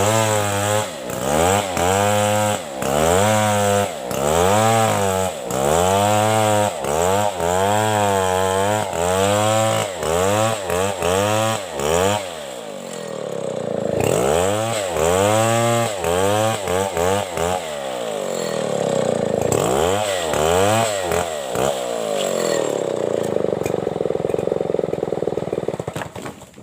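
Chainsaw cutting a coconut trunk, its engine revving up and down about once a second, then held at a steady high speed and shutting off suddenly near the end.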